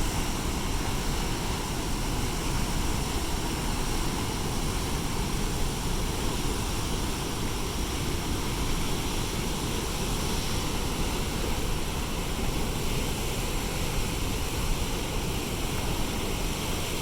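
Reservoir discharge: a steady, heavy rush of water pouring out of the dam's outlet.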